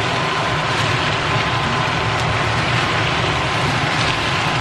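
Chicken drumsticks sizzling and bubbling in a wok as their sauce cooks down toward dry, an even steady hiss, over a steady low hum.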